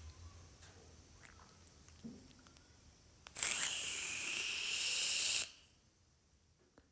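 Vaping puff: a single breathy hiss of vapour lasting about two seconds, starting a little past three seconds in and cutting off sharply, with a few faint clicks before it.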